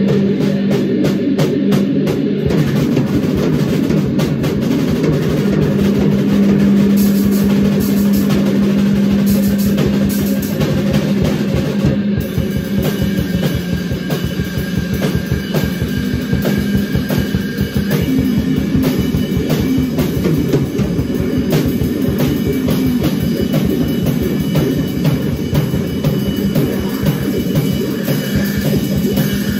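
Improvised noise jam on electric bass and drum kit: the bass holds a heavy low drone under fast, dense drum hits, picked up by a single phone microphone in a small room.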